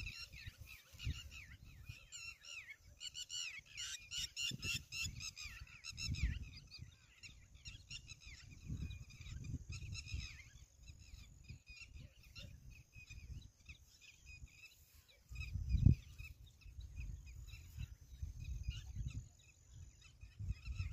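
Birds chirping in many quick, high calls, busiest in the first six seconds and thinning out after. A low rumble comes and goes underneath, loudest in a thump about sixteen seconds in.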